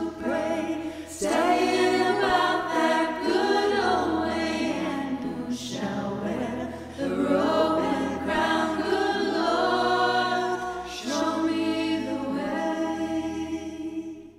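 A cappella vocal music: three singers in harmony, in several long sung phrases, fading near the end.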